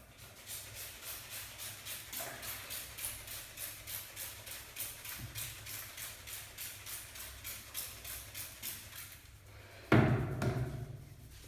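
Rapid rhythmic massage tapping, hands striking the body about three to four times a second, then one loud thump about ten seconds in.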